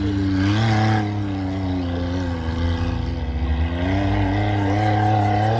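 Off-road vehicle engine revving under load, its pitch rising, falling and rising again.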